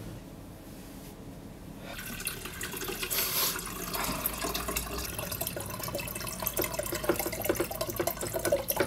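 Tap water running into a stainless steel sink as a cup is rinsed, with small clinks and knocks of crockery against the sink. It starts about two seconds in, after a quieter stretch.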